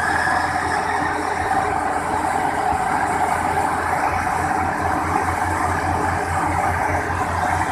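Heavy diesel machinery engine running hard while a stuck rice combine harvester is hauled out of the mud. A high metallic squeal fades in the first second, and a low throbbing pulse sets in about halfway through.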